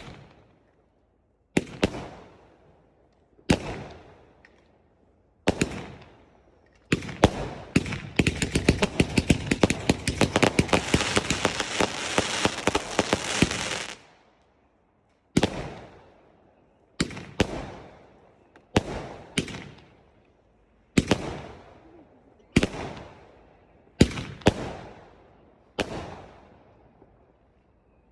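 Fireworks going off: a series of sharp bangs, one every second or two, each fading out in a trailing echo, with a dense stretch of rapid crackling in the middle lasting about seven seconds.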